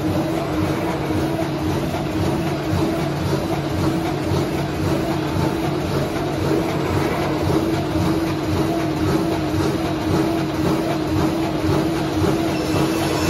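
SCL-series jumbo roll-to-sheet paper cutting machine running, cutting paper into sheets and conveying them on belts. It makes a steady hum with a regular low clatter.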